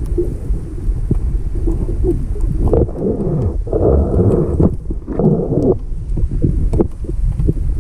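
Muffled underwater sound through an action-camera housing: a steady low rumble of moving water, with three louder churning surges about three, four and five seconds in as a speared giant grouper struggles in a rock crevice, and scattered sharp clicks from the spear and rock being handled.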